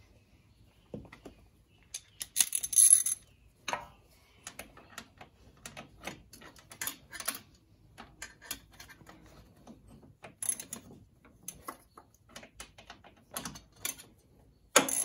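Irregular metallic clicks and clinks of a 10 mm hand tool backing out the screws that hold the electronic 4WD actuator to the ATV's front differential, with louder clusters of clinks at a few points.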